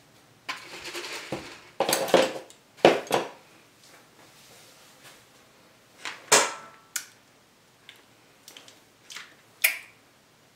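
Scattered knocks, clicks and rustles of things being handled, irregular and a second or so apart. The loudest are a few sharp knocks two to three seconds in and another a little after six seconds in.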